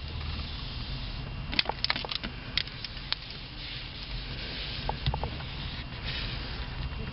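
Microfiber duster wiping a car's steering wheel and dashboard, with a run of light clicks and taps about one and a half to three seconds in and a few more about five seconds in, over a steady low rumble.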